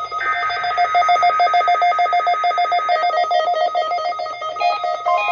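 Electronic synthesized tones: a fast trill on one note over steady higher tones, which after about three seconds changes into a stepping melody of several notes.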